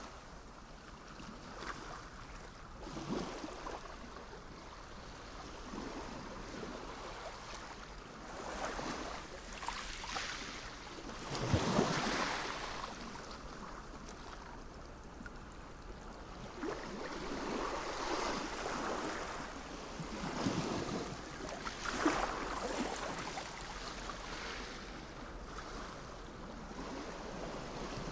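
Sea waves breaking and washing in, the sound swelling and falling away every few seconds, with the biggest surge near the middle.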